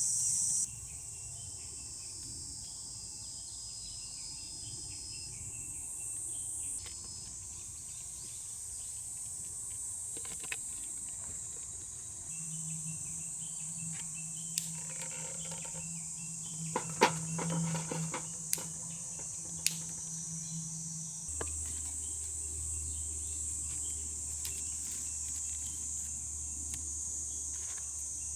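Steady high-pitched chirring of summer insects, with a few sharp clicks and taps near the middle.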